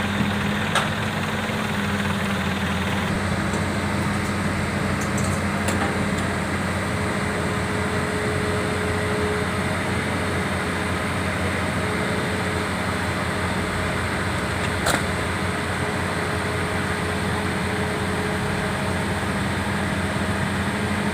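Hitachi EX200 excavator's diesel engine running steadily, with two sharp clicks, one about a second in and another later on.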